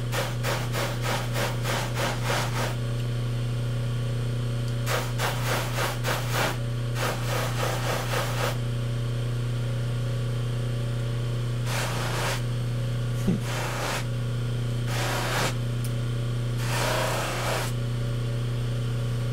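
Baldor 1800 rpm bench buffer running with a steady motor hum while a straight razor is polished on its unsewn cloth wheel loaded with red rouge. Several rubbing, hissing passes, rapidly fluttering in the first half, then four shorter ones later on.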